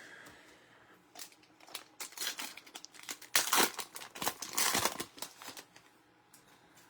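Crinkling and rustling of plastic packaging as trading cards are unwrapped and handled, in a run of short crackles over a few seconds.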